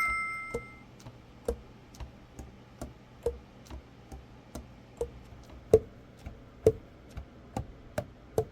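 A short bell-like ding, then steady ticking at about two ticks a second, like a clock.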